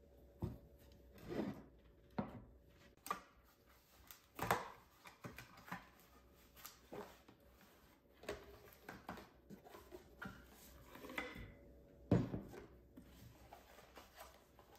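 Unboxing handling sounds on a wooden table: ceramic plates being stacked and set down, then a cardboard box being opened and a glass food container lifted out and put down. The sound is a scattered series of clinks, knocks and cardboard rustles, with the loudest knocks about four and a half and twelve seconds in.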